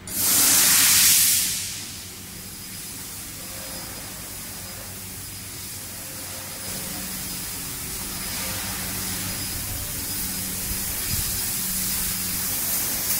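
Fiber laser cutting machine's assist gas hissing: a loud burst for about a second and a half, then a steadier, softer hiss that grows slightly louder toward the end, over a low steady hum from the machine.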